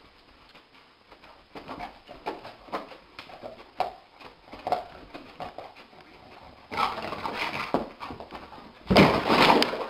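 A sleeping dog whimpering and yipping in short bursts as it dreams and paddles its legs, then scrambling up on carpet. The loudest sound is a noisy burst near the end.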